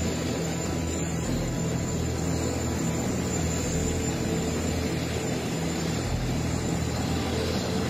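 Airbus A380's four jet engines running at low power as it taxis, a steady, unchanging engine noise with a low hum.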